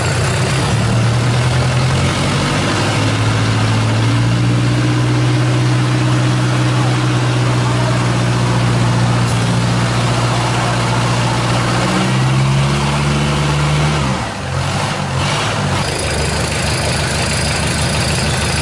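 Non-turbo Mitsubishi L200 diesel engine running out of the vehicle with no coolant in it, on a bench test before it is fitted. Its speed steps up a little in the first few seconds and holds steady, rises briefly past the middle, then drops back to a lower steady idle.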